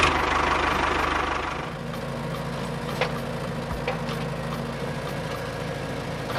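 Engine idling with a steady knock, loudest in the first second or so and then settling to an even run, with a couple of faint clicks near the middle.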